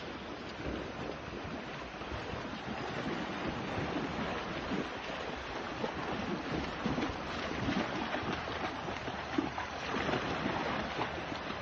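Floodwater rushing, a steady noise of moving water, with wind buffeting the microphone.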